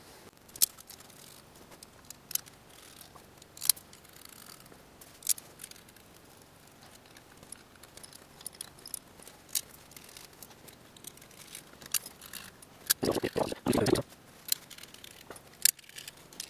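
Sparse light clicks and taps of small metal standoffs, screws and a screwdriver being handled and screwed onto a fibreglass quadcopter frame plate. About three seconds before the end there is a louder brushing noise lasting about a second.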